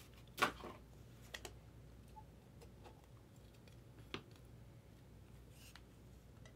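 A few scattered light clicks and taps from hands handling a small trading-card box and cards on a tabletop, the sharpest about half a second in.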